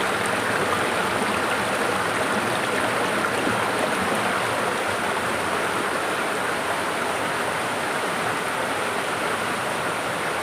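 Waterfall water rushing and splashing in a steady, loud roar of white noise.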